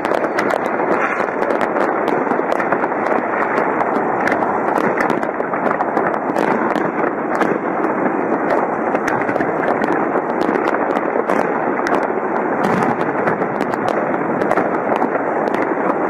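Aerial fireworks display: a dense, unbroken barrage of overlapping bangs and crackling, many sharp reports in quick succession.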